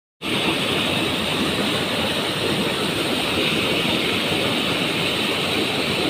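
Muddy floodwater rushing over a small rocky waterfall and churning in the pool below: a loud, steady rush of falling water.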